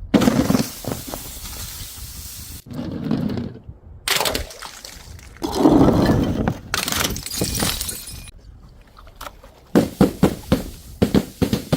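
Glass bottles and jars smashing one after another, glass crunching and shards clinking, with a quick run of sharp cracks near the end.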